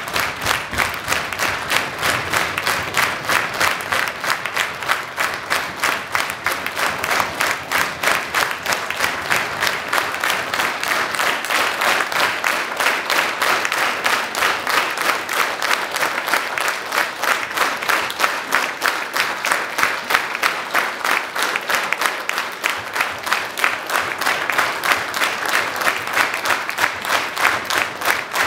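Theatre audience clapping in unison, about three claps a second, calling the band back for an encore.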